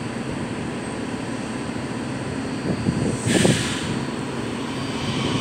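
Kawasaki 7000-series Metro railcar standing at the platform with a steady equipment hum. About three seconds in comes a brief hiss with a low thump, and near the end a whine sets in as the train starts to pull away.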